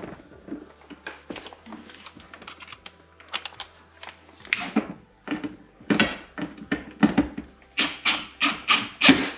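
Clicks and knocks of small parts and tools being handled. Near the end a cordless drill drives screws into a fish-finder gimbal mount bracket in short, quickly repeated bursts.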